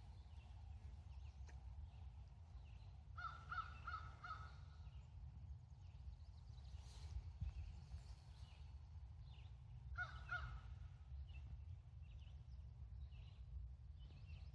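A crow cawing in two short series: four caws about three seconds in and three more around ten seconds, over a low steady background rumble.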